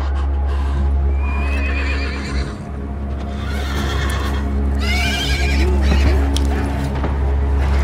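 Horse whinnying twice, a shaky call about a second in and a louder one around five seconds in, over a low droning film score.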